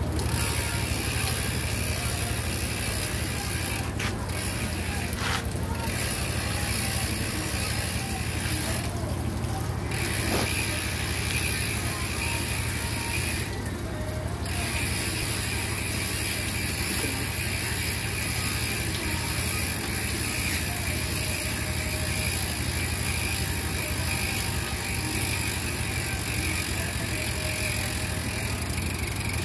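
Trek X-Caliber mountain bike's rear hub ratcheting as the wheel spins on a stand while the crank is turned by hand.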